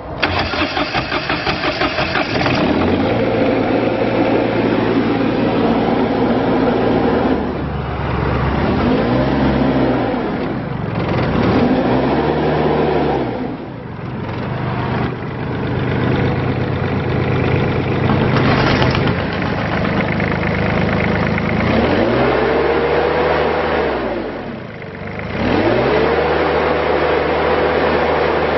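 Perkins diesel engine of a Terex PT30 compact track loader starting and running rough and pulsing for the first couple of seconds, then being revved up and let back down to idle several times.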